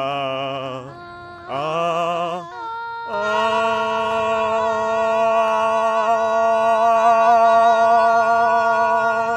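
A woman singing wordless held notes to match a pitch. First comes a short note, then one that slides up into a wavering note, then one long steady note held for about six seconds, the loudest of the three.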